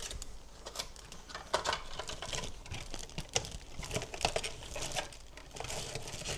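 Packaging being handled during an unboxing: scattered rustling and light clicks and knocks, with no steady sound.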